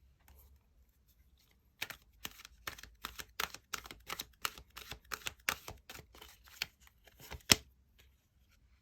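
Tarot cards being shuffled by hand: a run of quick card slaps, about three a second, ending with a louder tap near the end.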